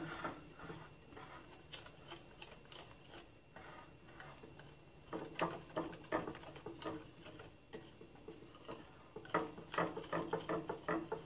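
Banana bread batter being stirred in a bowl, the utensil clicking and tapping against the bowl in quick runs, busiest about halfway through and again near the end.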